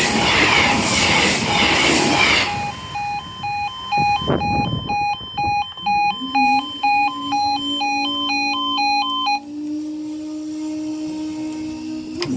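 A passenger train rushes over the level crossing for the first couple of seconds. The crossing's yodel alarm then warbles back and forth between two tones until about nine seconds in. From about six seconds, the barrier machine's motor hums steadily as the boom rises, stopping with a clunk near the end as the barrier reaches the top.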